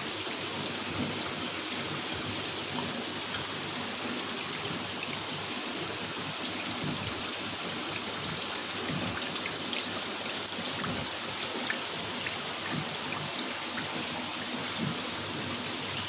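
Decorative Buddha-statue water fountain running: water falling steadily with small splashes.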